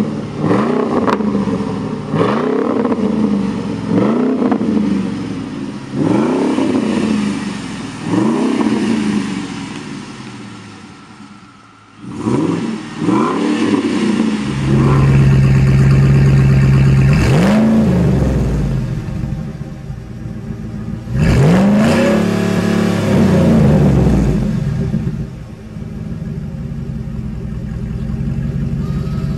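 Ford Raptor's 6.2-litre V8 revved repeatedly through its exhaust: five quick blips about every two seconds, then revs held high for a couple of seconds at a time, settling to a lower, steady run near the end.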